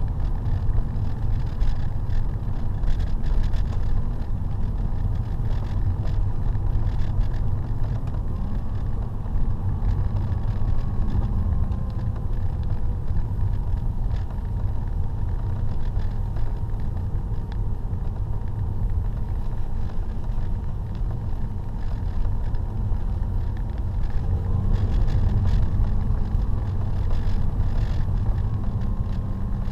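Steady road and engine rumble inside an Audi A5 Cabriolet's cabin while driving, heard with the soft top up, with a faint whine that drifts slightly in pitch.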